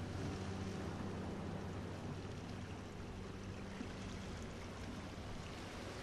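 Quiet relaxation background track: a steady stream-like rushing hiss under a low sustained drone that fades away about halfway through.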